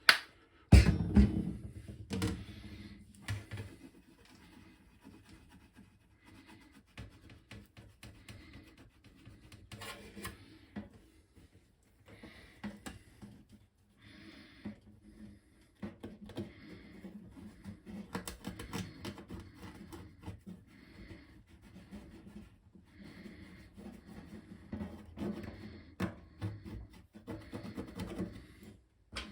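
Scrubbing cream cleanser into a corroded spot on a Commodore VIC-20 circuit board: quick, irregular scratchy rubbing strokes. There is a loud knock about a second in.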